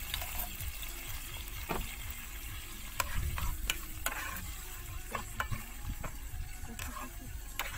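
Corned beef and onions sizzling in a frying pan while a spatula stirs them, scraping and tapping against the pan several times.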